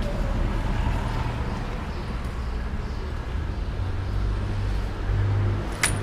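Steady low rumble of street traffic, with a single sharp click near the end.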